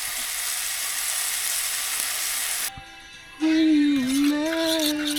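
Food sizzling in a frying pan: a steady hiss that cuts off suddenly about halfway through. A little later, music with a held, gliding melody line begins.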